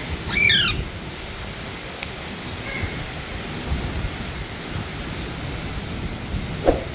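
Alexandrine parakeet giving one short, loud, harsh call just after the start, falling in pitch, over steady background noise. A faint short note follows about three seconds in.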